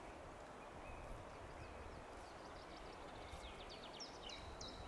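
Steady rush of shallow river water with songbirds calling: a few short high chirps, then a quick run of high, falling chirps near the end.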